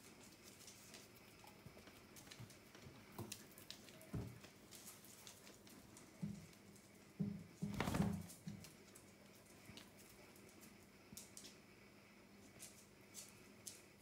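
Faint pattering and clicking of small paws and claws on a hard floor as a puppy and kittens move about, with a short run of soft thumps a little past halfway, the loudest among them just after.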